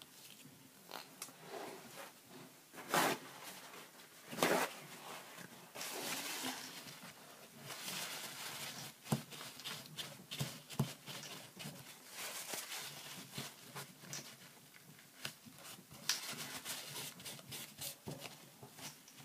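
Fingers pressing and rubbing glued paper and chipboard pieces onto a card, with scratchy rubbing and small taps and clicks of fingertips and nails on the paper. Two louder, short rasping noises come a few seconds in.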